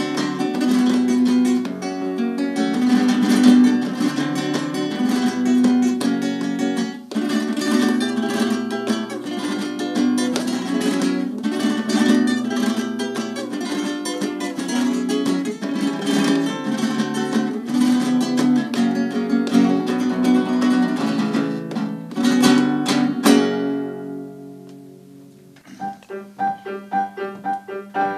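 Flamenco-style playing on a nylon-string classical guitar, with quick runs and strummed chords, ending about 23 seconds in on strummed final chords that ring out and fade. A few seconds later a piano starts playing softly.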